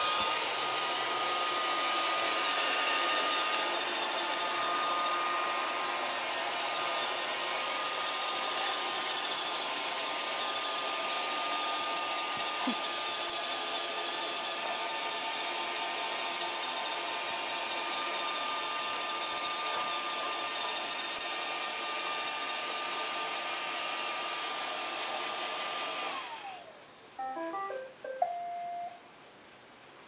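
Roomba robot vacuum running: a steady whirring hum with a thin high whine. Near the end the whine slides down in pitch and the motor cuts off, followed by a few short electronic beeps.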